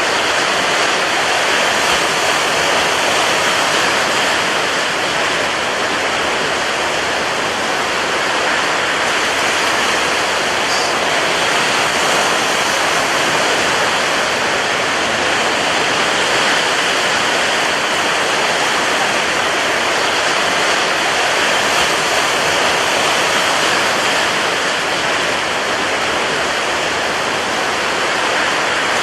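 Rough sea with strong wind: a dense, steady wash of surf noise with no single wave standing out.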